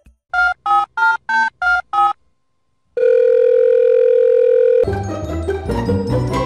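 Six short electronic beeps in quick succession, then after a pause of about a second one steady electronic tone lasting about two seconds. Background music starts near the end.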